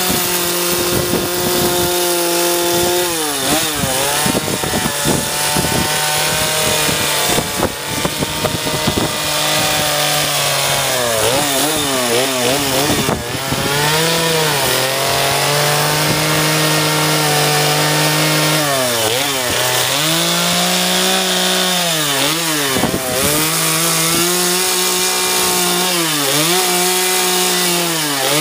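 Two-stroke chainsaw running at high revs while carving a wood log, its engine pitch sagging and recovering several times as the chain bites into the wood and the throttle is eased.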